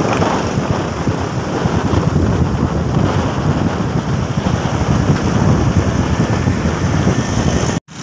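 Wind buffeting the microphone over steady engine and road noise from a moving vehicle. There is a brief dropout just before the end.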